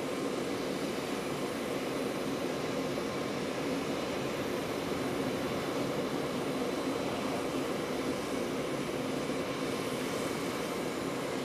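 Steady, even engine drone with no sudden sounds, as vehicles and aircraft run on an airfield apron while a Humvee is eased up a transport plane's cargo ramp.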